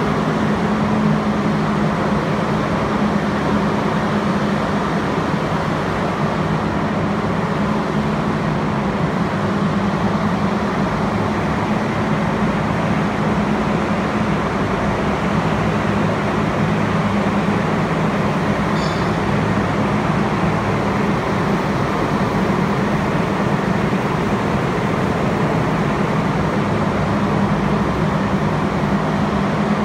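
Subway train in an underground station giving a steady, unchanging low hum and rumble.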